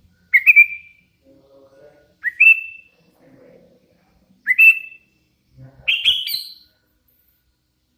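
Hand-reared young sooty-headed bulbul giving four short whistled calls about two seconds apart, each sweeping quickly up to a brief held note. The last call climbs higher in two steps.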